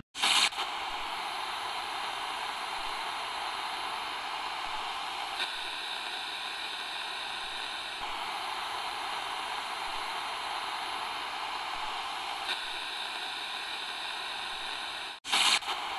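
Steady static-like hiss, with no speech; it cuts in abruptly at the start and cuts out abruptly near the end.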